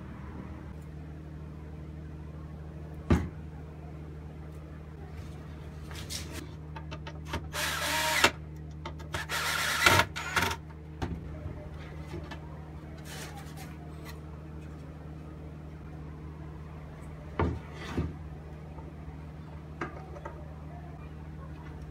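Cordless drill drilling into plywood in two short bursts, about eight and ten seconds in, with a few wooden knocks from parts being handled.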